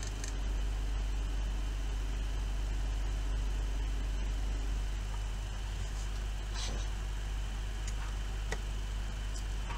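Electric motor spinning a magnet rotor at about 1400 rpm, giving a steady low hum. A few faint clicks in the second half come from handling test leads.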